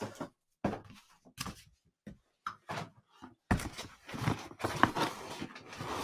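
Cardboard Amazon mailer being handled on a desk: a few light knocks and thunks, then, about halfway through, a longer stretch of cardboard rustling and tearing as the mailer is opened.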